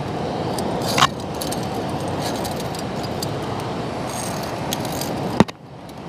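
Via ferrata climbing gear clinking: carabiners and metal hardware tapping against the steel safety cable and iron rungs. There are many small clicks, with a louder knock about a second in and another near the end, all over a steady rushing noise that drops away sharply after the second knock.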